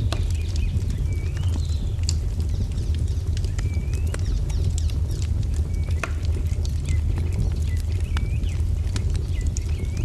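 Wood fire crackling with sharp, irregular pops over a steady low rumble. A songbird calls repeatedly throughout in short, hooked chirps.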